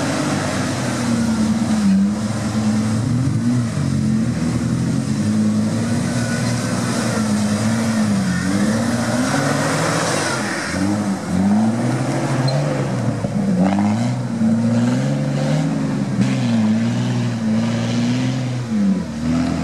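Jeep Wrangler engine running and being revved up and down again and again, its pitch rising and falling every second or two.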